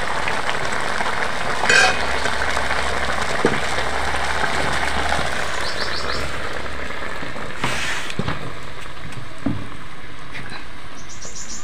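Mushroom curry sizzling steadily in an aluminium kadhai over a wood fire. About eight seconds in, a knock as the pan is set down, and the sizzling falls away. Birds chirp briefly.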